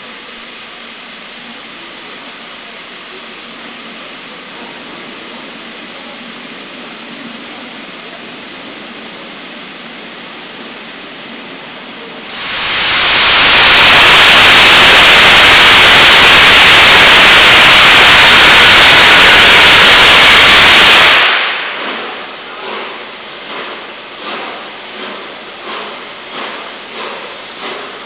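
Steam locomotive 60163 Tornado, an LNER Peppercorn A1 Pacific, simmering with a steady hiss; about twelve seconds in, a very loud rush of escaping steam runs for about nine seconds and then stops. Slow, regular exhaust beats follow, a little faster than one a second, as the locomotive gets under way.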